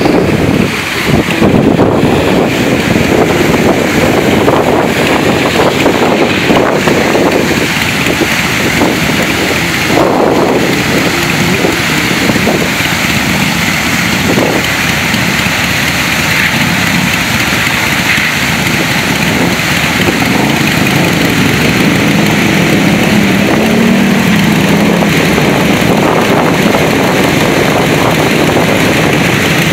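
Waterfall water rushing steadily over a road, mixed with motorcycle engines running as bikes ride through the stream, and wind on the microphone. The engine sound swells for a few seconds late on.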